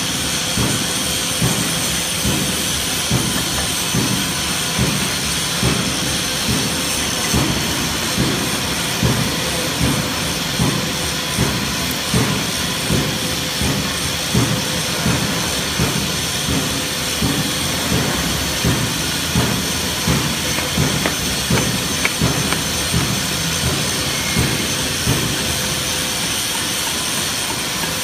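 Steady workshop machinery noise: an even hiss with a faint steady hum, under a quick, irregular low thudding of about one or two thuds a second.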